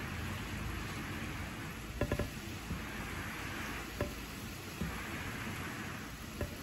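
Steady rain falling, with a few louder drops ticking on a nearby surface: three in quick succession about two seconds in, then single ones about four, five and six seconds in. No thunder is heard.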